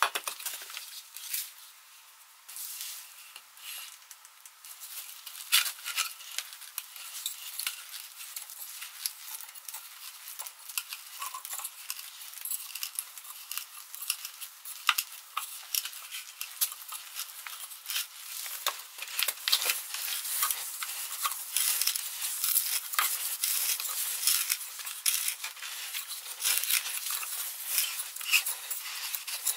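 Hand-turned steel auger bit boring into a wooden log: a dense crackling and scraping as the cutting edge shaves the wood and chips break off. Quieter for a moment near the start, then busier and louder through the second half.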